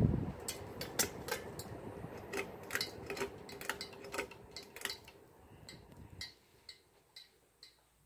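Bead pull chain on a Craftmade ceiling fan's light kit swinging and ticking against the glass globe and fixture: a run of irregular light clicks that grow sparser and fainter toward the end. A thump right at the start as the hand meets the fixture, and the fan running steadily underneath until about six seconds in.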